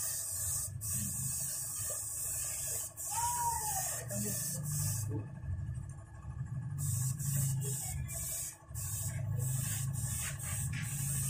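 Gravity-feed air spray gun hissing in long trigger pulls as it sprays paint onto a boat engine block, stopping for about two seconds midway and then resuming with a few short breaks. A low steady hum runs underneath.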